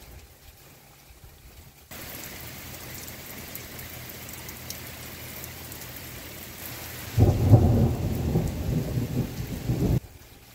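Heavy rain hissing, starting suddenly about two seconds in, with a loud low rumble of thunder over it from about seven seconds; both cut off suddenly near the end.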